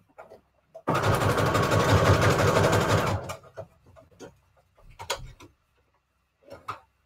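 Electric sewing machine running a short burst of stitching, about two seconds long, on the smaller default stitch through a scrap of paper and lace. A few light clicks follow as the work is handled at the machine.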